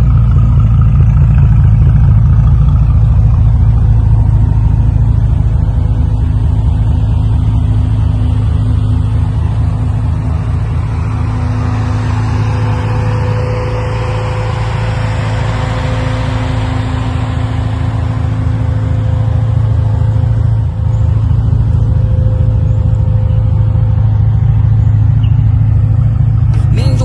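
Bentley Continental GT Speed's 6.0-litre twin-turbo W12 engine idling steadily with a deep, even tone.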